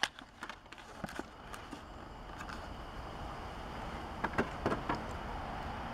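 A few light clicks and crackles of a plastic toy blister pack being handled, at the start and again about four seconds in, over a faint steady low background rumble that slowly grows louder.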